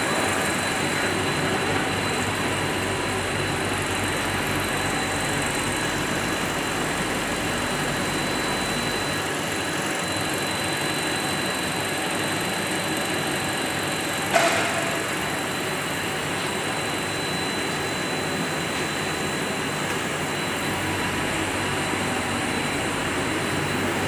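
Machinery of a corn puff ring snack production line running steadily, with a constant high whine over a dense mechanical hum. A single sharp clank about halfway through.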